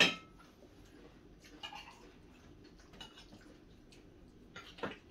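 Cutlery and plates clinking lightly during a meal: a sharp clink right at the start, then scattered faint taps, with two more clicks near the end.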